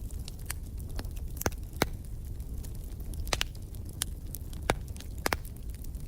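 Fireplace wood fire crackling: irregular sharp pops, a few each second, over a steady low rumble of the flames.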